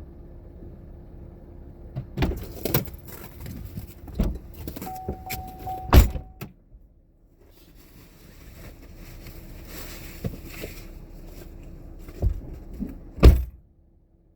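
A series of knocks, clunks and rattles from gear being handled, the loudest about six seconds in and near the end, over a steady low hum.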